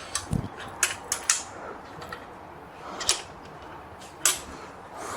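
Scattered metal clicks and clinks, about half a dozen, with a low thump early on, as a motorcycle front axle slider, its washer and nut are handled and slid through the hollow front axle.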